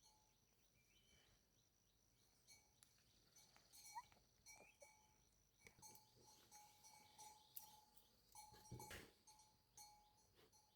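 Near silence, with faint background: a few short, faint chirps, scattered light clicks, a faint steady high tone, and a single knock about nine seconds in.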